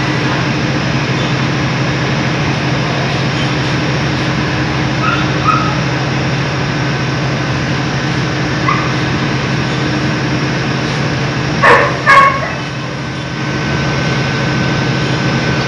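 A dog barks twice in quick succession about twelve seconds in, over a steady low hum that runs throughout.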